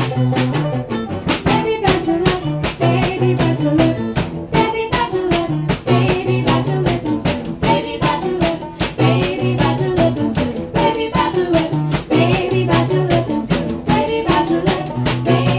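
Live acoustic folk band playing: banjo, mandolin and two acoustic guitars strummed and picked over a small drum kit keeping a steady beat.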